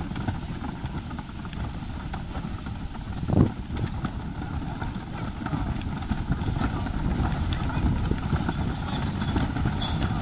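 A train of wheeled plastic wheelie bins rolling over a gravel path, their small wheels rattling and crunching, with a slow-moving vehicle engine running. A brief low bump stands out about three seconds in.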